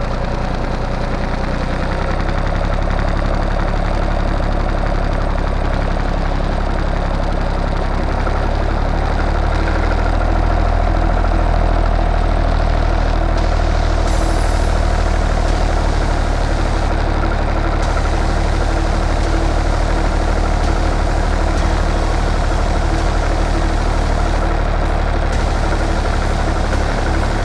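Fordson Dexta tractor engine running steadily while driving a rotary slasher through grass.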